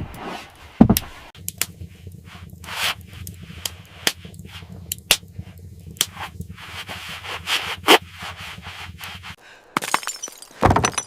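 A series of sharp cracks and knocks with scraping between them, over a low steady hum that stops near the end.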